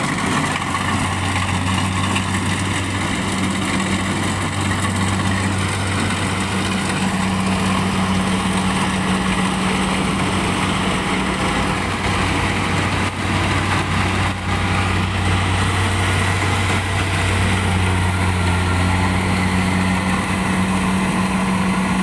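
Engine of a rice harvesting machine running steadily at constant speed, a loud, even hum with a couple of brief dips in the middle.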